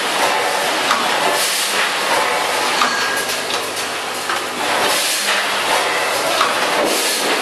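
Vertical form-fill-seal packaging machine for granules running: a steady mechanical clatter with repeated hissing and clacking bursts as it cycles.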